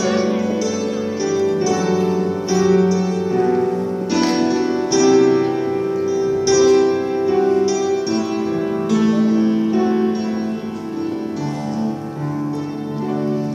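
Instrumental introduction to a gospel medley: an accompaniment instrument plays a slow run of ringing notes and chords, each note starting sharply and then sustaining, before the choir comes in.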